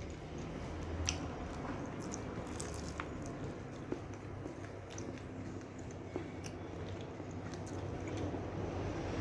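Close-up chewing and biting of a fried pastel with crisp dough and a soft, wet filling. There are moist squishing mouth sounds and a few sharp clicks.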